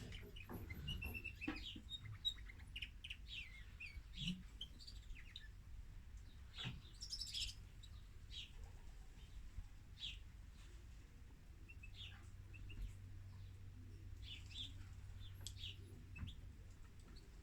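Female domestic canary giving faint, scattered chirps and short song phrases, irregularly spaced rather than a continuous song. A few sharp clicks and a steady low hum run underneath.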